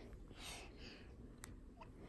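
Near silence: quiet room tone with a faint click about one and a half seconds in.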